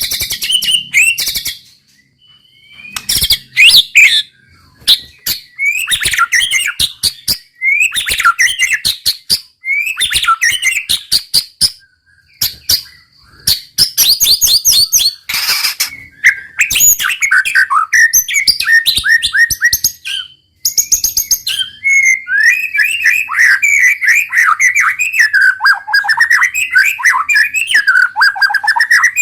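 White-rumped shama singing loud, varied whistled phrases, at first in bursts with short pauses and then, after about twenty seconds, in a nearly unbroken run of rapid rolling notes.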